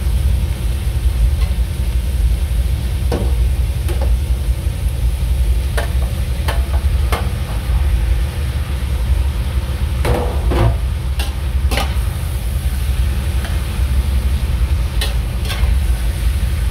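Chicken frying in a large stainless steel pot, with a metal slotted spatula scraping and knocking against the pot as the pieces are stirred and more raw chicken is tipped in from a metal tray. A steady low hum runs underneath.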